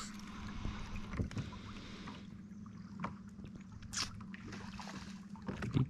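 Minn Kota Endura C2 45 lb electric trolling motor running steadily with a low hum, pushing a kayak along, with a light wash of water. A few short sharp ticks sound over it.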